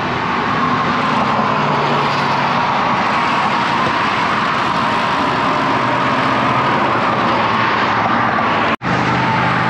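Steady traffic noise from cars and pickup trucks passing on a highway frontage road, tyres and engines running together. The sound cuts out completely for a split second near the end.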